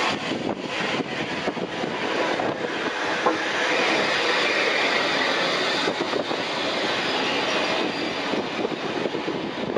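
Coaches of a steam-hauled passenger train running past close by along a platform: a steady rumble and clatter of wheels over the rails.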